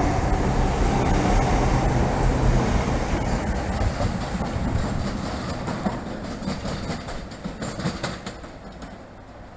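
Southeastern Class 395 Javelin electric train passing close at speed, its roar fading steadily as it draws away. Wheels click over rail joints as it goes.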